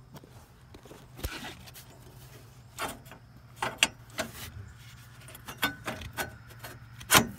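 Scattered light clicks and knocks, about nine over several seconds, the loudest near the end, as a metal transmission dipstick tube is worked into place among parts under a pickup.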